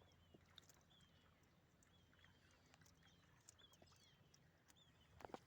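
Near silence: quiet outdoor background with faint, repeated short high chirps and a few soft clicks, and a brief louder sound just before the end.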